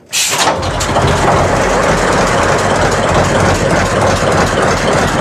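Six-cylinder Baudouin slow-running diesel engine starting on compressed air: a brief sharp hiss of starting air, then the engine catches and keeps running with a steady, loud, low throb.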